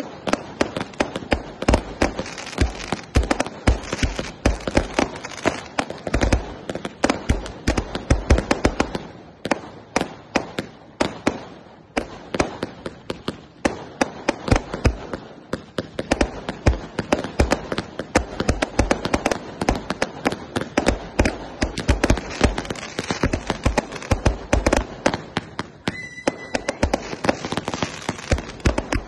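Two firework batteries, 'Angel of the Night' and the 480-shot 'Sound of the Thunder', firing together: a rapid, continuous string of bangs, several a second, overlapping with no pause.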